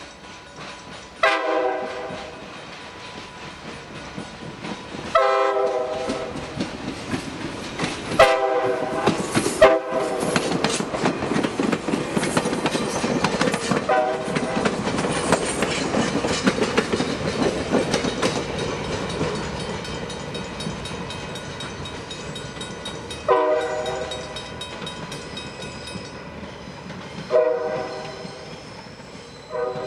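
VIA Rail Budd Rail Diesel Car passenger train sounding a series of horn blasts as it approaches. About ten seconds in it passes close by with a loud rumble of its diesel engines and wheels clacking on the rails, then it sounds more horn blasts as it pulls away.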